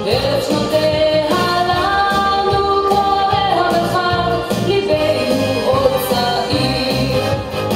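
Song music with a singing voice carrying the melody over a steady, pulsing bass beat.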